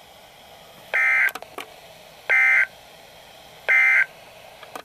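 Three short bursts of EAS/SAME digital data tones, the end-of-message code of a NOAA Weather Radio alert, about a second apart over faint radio hiss. They mark the close of the special marine warning broadcast.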